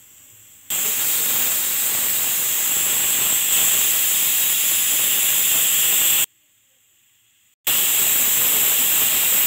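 Pressure cooker whistling: steam hissing loudly out past the weight valve on the lid. It goes in two long blasts, the first about five and a half seconds, then a pause of about a second and a half before the second. The cooker has reached full pressure, and the whistles count off the cooking time; three whistles means it is done.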